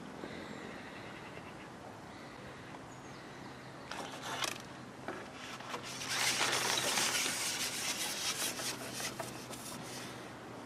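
Long fishing pole being handled and slid out through the hands: a few short scrapes, then a louder rough rubbing and rasping for about four seconds.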